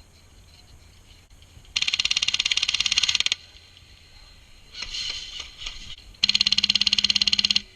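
HPA-powered G&G airsoft light machine gun (Wolverine Inferno Gen 2 Spartan engine) firing two long full-auto bursts of rapid, evenly spaced shots, with a shorter, quieter rattle of fire between them.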